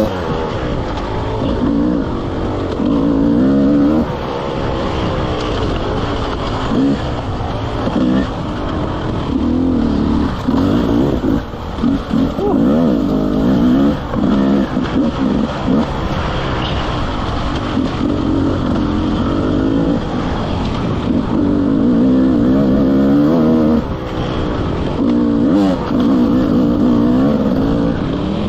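Enduro dirt bike engine heard from on the bike, revving up and down repeatedly as the throttle is opened and closed over rough ground, with brief lulls every few seconds.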